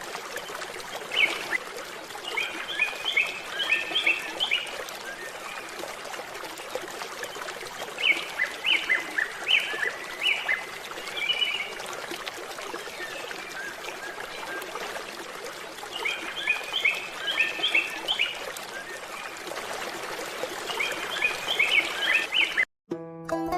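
A songbird singing a short phrase of several quick high chirps, repeated four times about every six to eight seconds, over a steady background rush. Plucked-string music cuts in near the end.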